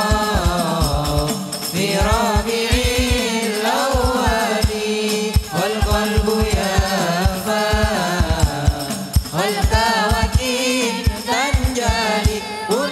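A hadrah ensemble performing sholawat: male voices sing a long, winding devotional melody into microphones over frame drums (rebana) beating a dense, fast rhythm with deep bass strokes.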